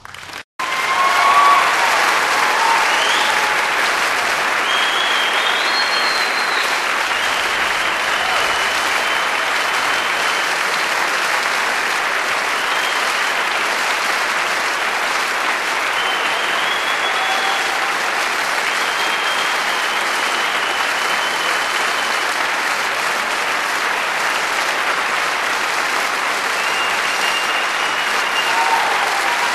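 Audience applause starts suddenly about half a second in and goes on steadily, with short high calls rising above the clapping now and then.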